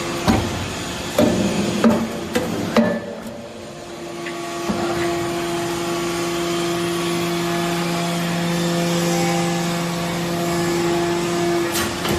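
Metal scrap chip baler at work: a run of sharp metallic clanks and knocks, then from about four and a half seconds in its hydraulic pump running with a steady hum.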